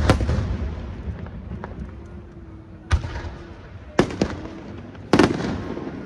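Aerial firework shells bursting overhead. A loud bang right at the start rolls into a long echo. Further single bangs come about three, four and five seconds in.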